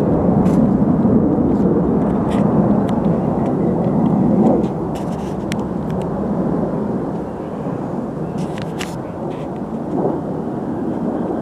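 Airplane flying overhead, a loud low rumble that drops off about four and a half seconds in and then keeps fading as it moves away.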